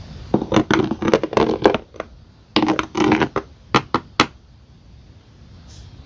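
Slime being squished and poked by hand: a quick run of crackles and pops in two bursts, then a quieter stretch.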